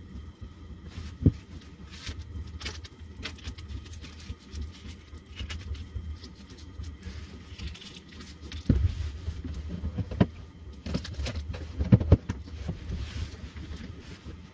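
Sandwich frying in a pan on a propane camp stove: a steady low rumble under a faint crackle. Scattered clicks, knocks and rustles of handling come through it, louder and more frequent in the second half.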